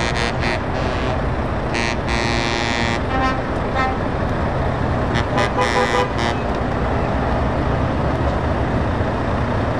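Diesel lorry engines idling with a steady low rumble while a truck horn sounds twice: a blast of about a second, starting about two seconds in, and another a little past halfway.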